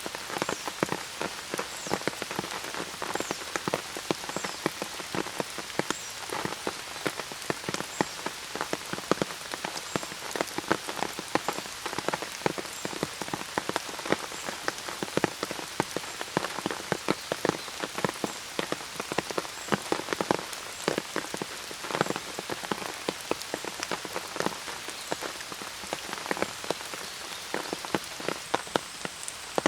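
Steady rain with many close, sharp drop taps, some louder than others, over an even hiss of rainfall.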